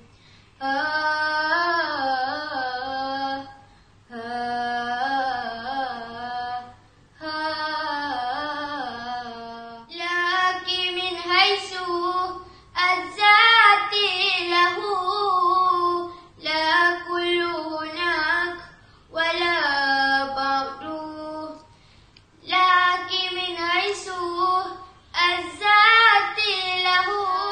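A girl's solo voice singing nazam, Arabic religious verse, in phrases of about three seconds with short breaths between. The melody wavers within each phrase and moves to a higher pitch about ten seconds in.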